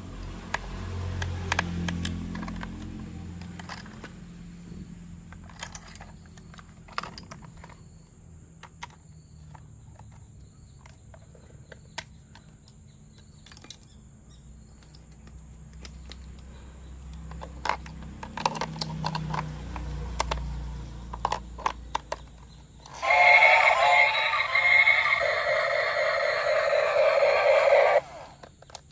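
Light plastic clicks and knocks from handling toy parts, with a low hum in places. About two-thirds of the way in, a loud electronic tune with a wavering pitch plays for about five seconds, then cuts off suddenly.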